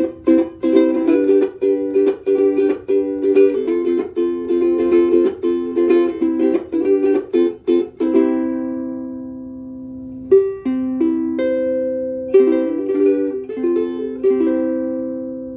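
Oli L2-CRR ukulele with a curly redwood top and rosewood body, strung with high-tension Worth Brown Fats strings, being played: a run of quick strummed chords, a chord left to ring about eight seconds in, a few single notes, then a few more chords and a final chord ringing out.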